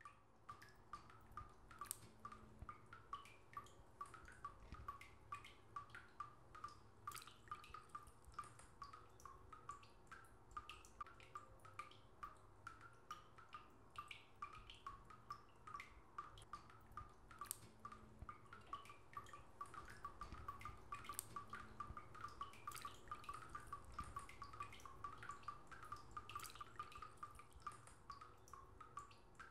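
Water dripping steadily: many small drops a second, faint and irregular.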